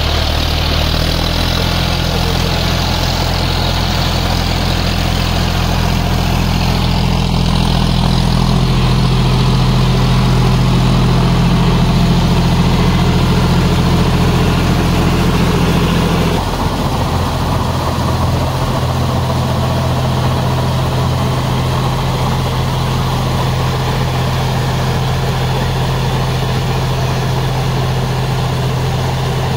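John Deere 5050D tractor's three-cylinder diesel engine running steadily under load, driving a rotavator through deep mud. The engine note shifts a couple of times and drops a little about halfway through.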